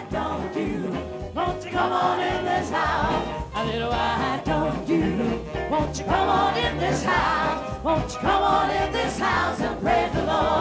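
Live gospel music: a woman sings the lead into a microphone, with a choir and instrumental backing.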